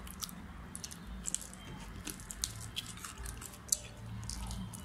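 Close-up mouth sounds of people eating sauce-covered chicken wings: wet chewing and lip smacks, heard as an irregular scatter of small sharp clicks.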